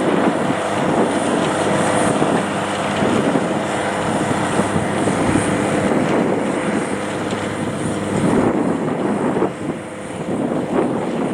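JCB Fastrac 7270 tractor's Cummins six-cylinder diesel running steadily under heavy load, pulling a six-furrow plough through wet ground. The sound dips briefly near the end, then comes back up.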